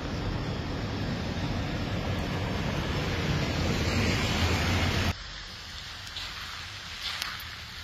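Heavy vehicle engines running, a steady rumble with a rushing noise that grows a little louder. It cuts off suddenly about five seconds in, leaving a quieter background with a few faint scrapes.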